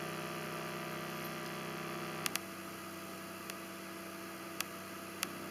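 A small tweeter wired through a capacitor as a clipping detector gives off a steady buzzing hum from a 32 Hz test tone. Its sound means the amplifier's output is reaching the point of clipping. A few short clicks come partway through.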